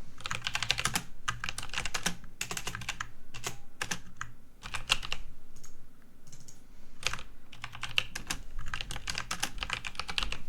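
Computer keyboard being typed on in quick bursts of keystrokes, with short pauses between the bursts.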